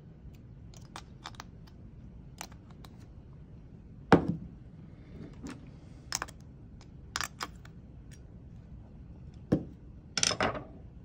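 Metal screwdriver shaft clicking and tapping against the terminals of an AC run capacitor as they are shorted to discharge it, with scattered light clicks and one louder knock about four seconds in.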